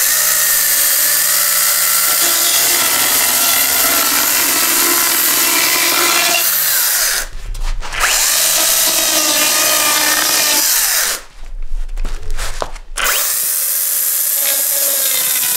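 Chainsaw running at full speed as it cuts into a cardboard box. It runs in three long spells, easing off briefly about seven seconds in and again around eleven to thirteen seconds.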